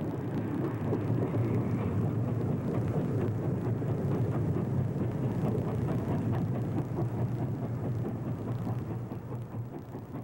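Virginian Railway PA-class steam passenger locomotive running past at speed with its train: a steady, dense rumble of exhaust and rolling wheels that fades over the last couple of seconds.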